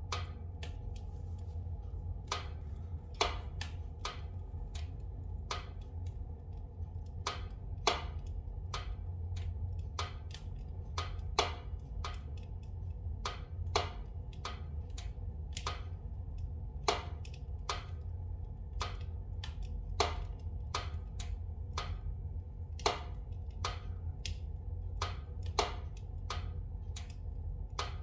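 Spruce logs burning in a fireplace, crackling with frequent irregular sharp pops over a steady low rumble. The pops come from pockets of resin and moisture in the softwood bursting in the heat.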